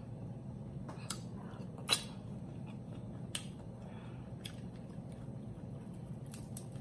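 A person chewing food close to the microphone: soft mouth sounds with a few scattered wet clicks, the sharpest about two seconds in, over a steady low hum.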